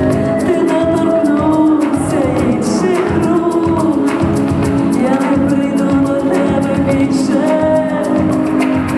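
A song playing: a woman's sung vocal line over a steady beat.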